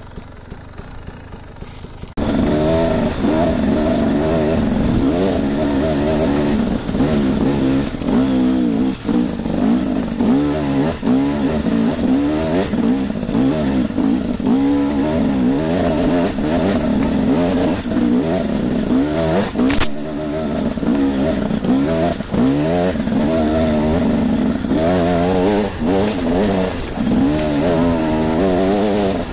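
Two-stroke enduro motorcycle engine of a TE 300 being ridden off-road, revving up and down constantly as the throttle opens and closes. It is quieter for the first two seconds, then loud, with occasional knocks.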